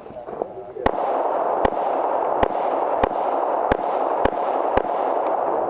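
Seven pistol shots fired at a steady pace, about one every two-thirds of a second, over a steady background hiss: a shooter working through an IDPA stage.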